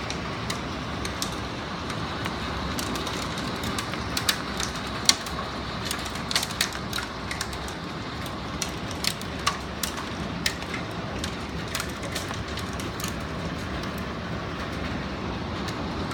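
Small hail falling on a wooden deck: a steady hiss with many sharp ticks of individual hailstones striking the boards and railing, the clicks thickest in the middle and loudest about five seconds in.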